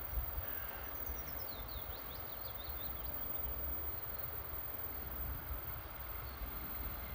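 Low, uneven rumble of a distant diesel locomotive approaching along the track, over outdoor background noise. A small bird chirps a quick run of short notes about one to three seconds in.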